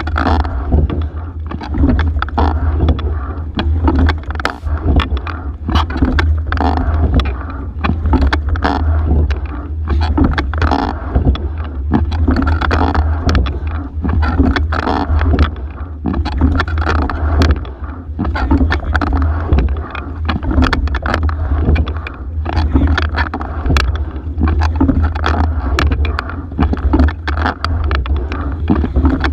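Racing single scull under way: water rushing along the hull over a steady low rumble, with knocks and clicks from the oars and sliding seat, the sound swelling about every two seconds with the stroke.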